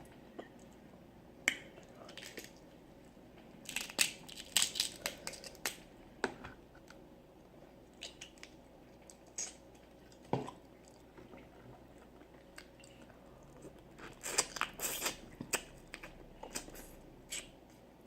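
Close-up eating mouth sounds from a seafood boil of snow crab and crawfish: chewing and lip-smacking, heard as irregular clusters of sharp clicks with quieter gaps between. The busiest stretches come about four seconds in and again about fourteen seconds in.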